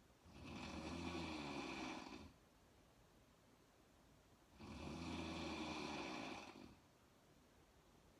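A sleeping woman snoring: two long snores about four seconds apart, each lasting about two seconds, with quiet breathing between them.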